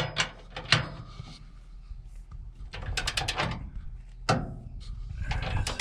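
Clicking and clinking of a hand ratchet and steel hardware as nuts are run onto the truck's tie-down bolts, with a quick run of evenly spaced ratchet clicks about three seconds in and a sharper knock shortly after.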